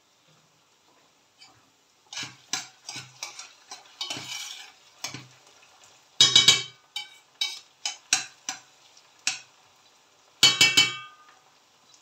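Metal spoon stirring chopped onions sautéing in a stainless steel pot, scraping and clinking against the pot in a run of short strokes starting about two seconds in, with a louder flurry near the middle and another near the end.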